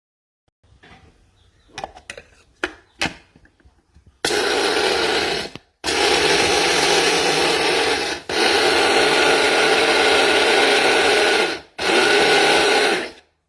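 A few light clicks and taps, then the Hamilton Beach Fresh Grind electric coffee grinder's stainless steel blades run in a loud, steady whir, grinding beans in four long pulses with brief stops between them.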